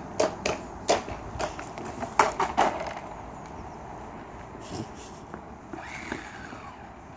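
Close footsteps and knocks on asphalt, sharp and irregular, during the first three seconds. After that comes quiet street background, with a faint falling whine about six seconds in.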